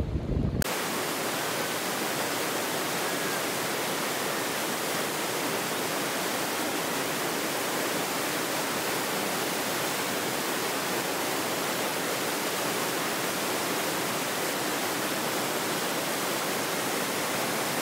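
Whitewater river rapids rushing in a steady, unbroken wash of noise.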